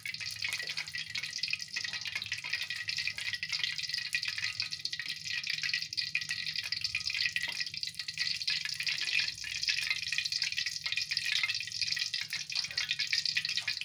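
Hot cooking oil in a wok sizzling with a steady, dense crackle as a few small bits fry in it.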